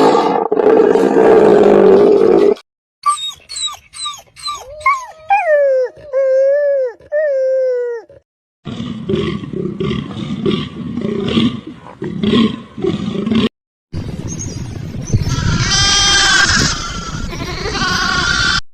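Several different animal calls, cut one straight after another. First a loud roar-like call, then a run of pitched cries that slide down in pitch, then quick rhythmic grunting pulses, and last a noisy call with a short pitched cry about two-thirds of the way through.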